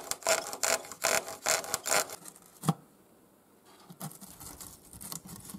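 A short blade held in locking pliers sawing through the model aircraft's fuselage skin along a marked outline to cut out a hatch, in quick back-and-forth scraping strokes about two to three a second. The strokes stop for about a second midway, then fainter scraping follows.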